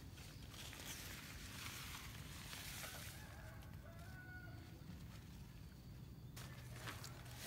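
Canvas tarp rustling and brushing through grass and weeds as it is pulled and spread out. A few faint short animal calls are heard about halfway through.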